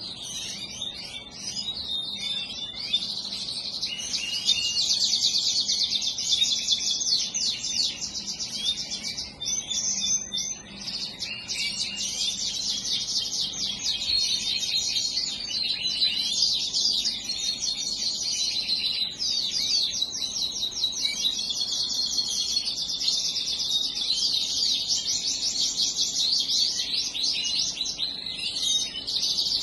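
Canaries singing in a bird room: an unbroken chorus of fast rolling trills and chirps.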